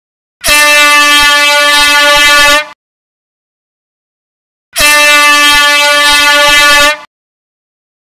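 Air horn sounding two long, loud blasts of about two seconds each, one steady note, each cutting off sharply, with a pause of about two seconds between them.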